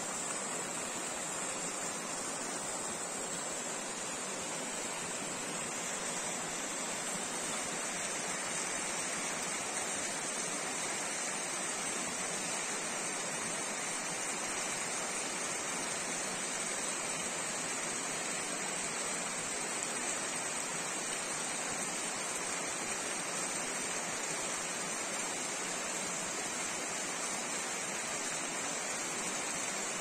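A stream rushing steadily, an even, unbroken hiss of flowing water.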